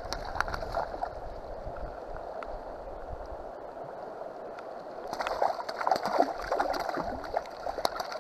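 River water lapping and gurgling close by, with a hooked fish splashing and thrashing at the surface; the splashing gets louder and busier about five seconds in.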